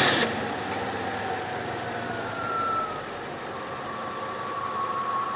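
1995 Honda Civic engine running at a steady idle just after starting, with a faint whine; it runs again now that a clogged fuel filter starving it of fuel pressure has been replaced.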